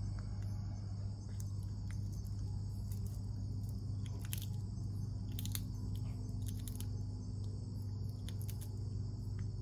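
Baby monkey chewing a cicada, giving short crisp crunching clicks at irregular intervals, thickest about four to seven seconds in. Underneath runs a steady high-pitched insect chorus and a steady low hum.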